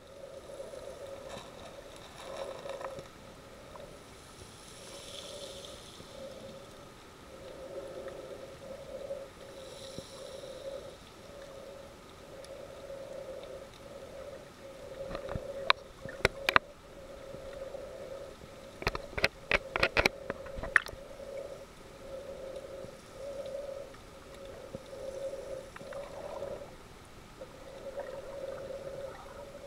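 Underwater sound picked up by the camera: a steady drone at one pitch that swells and fades every second or so, over a faint hiss. Around the middle come two clusters of sharp clicks or knocks.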